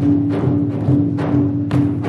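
Traditional dance percussion: a steady beat of sharp strikes, about two a second, over a low drum pulse and a held ringing tone.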